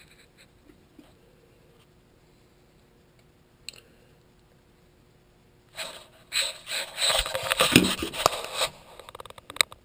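Quiet room tone with one faint click, then about six seconds in, several seconds of rustling and knocking from the camera being handled and moved.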